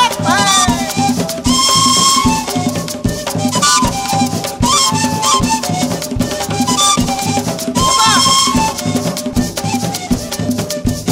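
Background music with a steady percussion beat and a melody whose notes slide in pitch.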